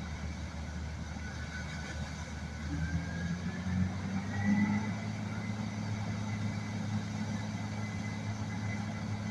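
Combine harvester engine running steadily at work in a corn field, its pitch stepping up a little about three seconds in and then holding.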